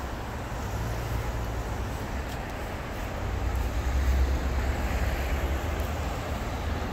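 City street traffic: cars and engines going by on the avenue, a steady low rumble that swells about halfway through.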